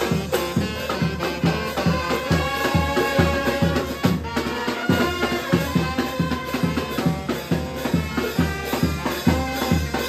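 Live brass band playing a tune of sustained brass notes over a steady drum beat.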